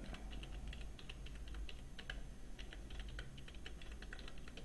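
Computer keyboard being typed on: a quick, irregular run of key clicks, several a second, over a faint low hum.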